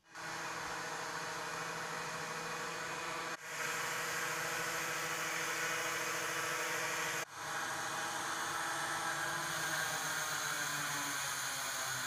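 Steady machine whir: an even hiss with a low, unchanging hum. It breaks off for an instant twice, and one hum tone slides slightly lower near the end.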